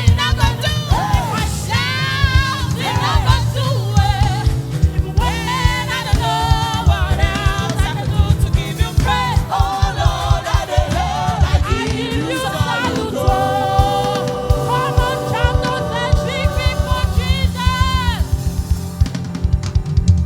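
Gospel singing with a live band: voices singing with strong vibrato over a steady drum-kit beat and bass.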